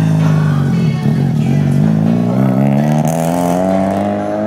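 Nissan Skyline R32's swapped-in 13B twin-turbo two-rotor rotary engine revving as the car pulls away: its pitch dips about a second in, then rises steadily over the last three seconds.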